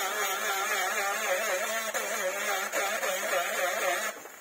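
Small handheld 12V rotary tool running with a whine that wavers up and down in pitch as its bit grinds and smooths M-Seal epoxy filler on a plastic motorcycle fairing. It cuts off near the end.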